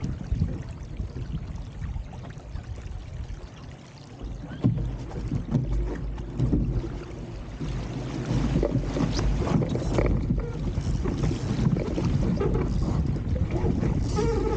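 RS300 sailing dinghy's hull rushing and slapping through the water, with wind buffeting the microphone; it gets louder about halfway through as the boat picks up speed.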